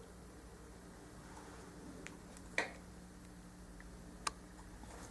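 Quiet room tone with a faint steady hum, and two faint, short clicks about two and a half and four and a quarter seconds in.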